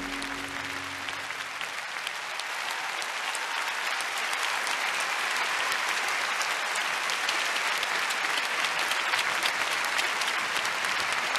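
Large arena audience applauding, the clapping growing steadily louder. The last held notes of the programme music fade out in the first second or so.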